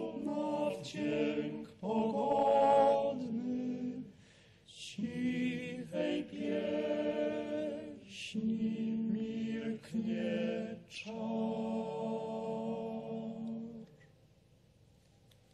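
Male choir singing a cappella, several sustained phrases with short breaks between them; the song ends about 14 seconds in.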